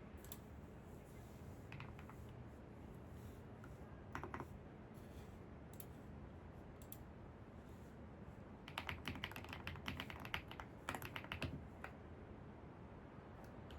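Computer keyboard typing: a few scattered keystrokes, then a quick run of typing about nine seconds in that lasts around three seconds, over steady background noise.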